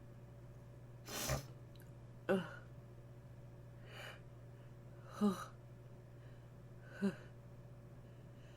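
A person with a congested nose sneezing three short times, a few seconds apart, with a sharp sniffling in-breath about a second in and a softer breath between the sneezes.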